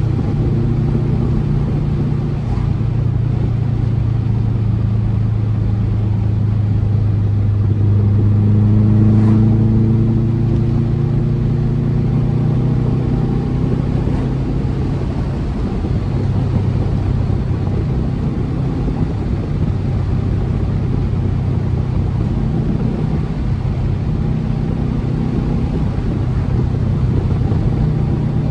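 2004 Subaru WRX's turbocharged EJ flat-four with an Invidia exhaust, running at steady cruising revs with a low rumble. The revs climb a little and then ease back about a third of the way in.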